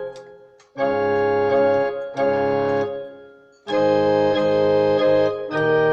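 Casio CTK-3500 portable keyboard playing held chords on one of its built-in organ tones. A chord fades at the start, then new chords come in about a second, two, and three and a half seconds in, each held for a second or two and then released.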